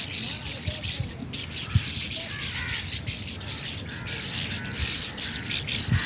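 A flock of swallows twittering continuously, many rapid high chirps overlapping, with a few lower curved calls mixed in.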